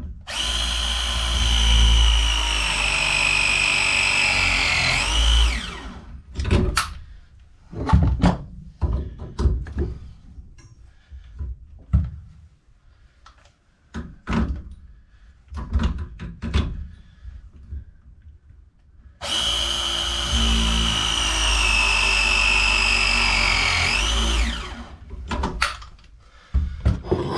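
Battery-powered pipe press tool (ProPress-type) crimping a press coupling twice, about 19 seconds apart: each cycle the motor runs for about five seconds, its whine sinking as the jaws close under load, then sweeping sharply back up as it releases. Knocks and clicks of the tool and fittings being handled come between the two presses.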